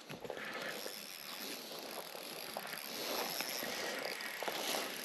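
Spinning reel ticking and rattling as a hooked fish is played in, light irregular clicks over a steady hiss.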